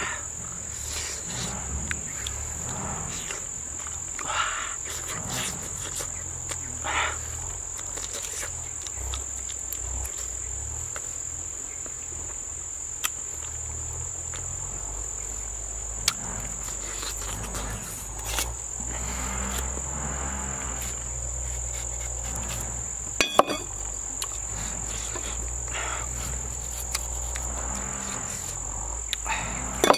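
Steady high-pitched insect drone throughout, over close sounds of a banana being peeled, cut and chewed. A few sharp clicks stand out, the loudest about 23 seconds in.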